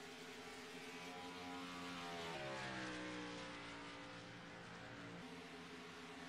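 Racing car engine running at steady revs; its pitch glides down about two and a half seconds in and shifts again about five seconds in.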